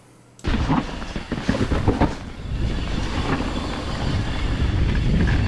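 Mountain bike riding down a rough dirt trail: a dense rumble and rattle of tyres and bike over the ground, cutting in suddenly about half a second in.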